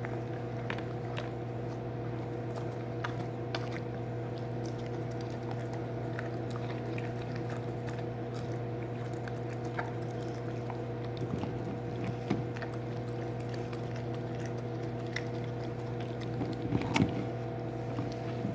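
A steady mechanical hum with faint scattered clicks and crunches, a dog chewing a large gingerbread cookie.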